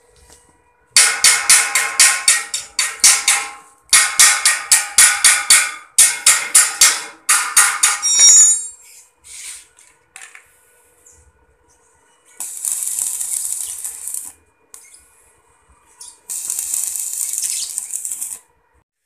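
Stick (electric arc) welding on a steel tower frame: the arc crackles and hisses in two bursts of about two seconds each in the second half. Before that, a fast run of ringing metal-on-metal strikes, about three to four a second, for several seconds.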